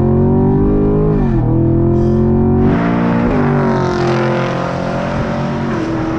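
Camaro SS's naturally aspirated 6.2L V8 through a Corsa Extreme cat-back exhaust, pulling under full throttle. Its pitch climbs, then drops at upshifts about a second in and about three seconds in, before running fairly steady. Flooring it opens the exhaust valves even in Tour mode.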